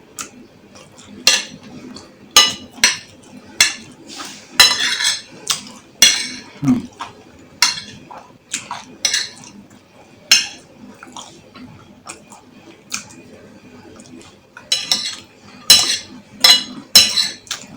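Cutlery clinking and scraping against a bowl of food, in many sharp irregular clicks, with mouth sounds of eating between them.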